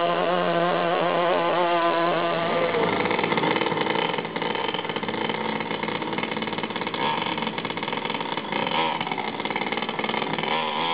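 Small two-stroke string-trimmer engine of a 1/5-scale RC pulling tractor running hard under load as it drags the sled, its high buzzing note wavering in pitch. After about three seconds the clear engine note breaks up into a noisier mix.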